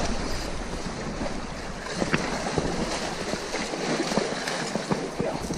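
Sea surf washing and wind buffeting the microphone: a steady, rushing noise.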